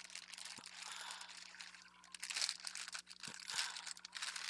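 Crinkling, rustling handling of craft trim and its packaging, with a few small sharp clicks.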